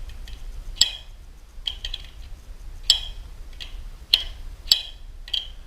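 Sharp metallic clicks and clinks from hand tools on the garage door opener's chain-tensioning bolt and nut as the nut is turned to take up the chain's slack. They come irregularly, about four loud ones with softer ones between.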